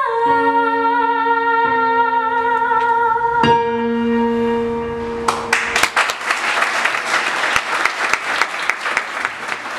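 A woman holds the last sung note of a bolero with vibrato over a guitar's final notes, her voice stopping about three and a half seconds in; the guitar rings out and an audience starts applauding about five seconds in, clapping to the end.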